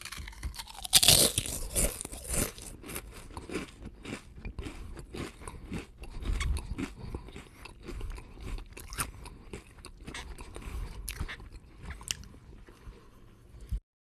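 Potato chips being bitten and chewed: a loud crisp bite about a second in, then a steady run of crunching chews that cuts off abruptly near the end.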